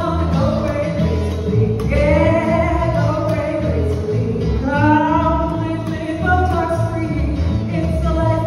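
A live acoustic song: one voice singing a melody over acoustic guitar, with an upright double bass playing a walking line of low notes.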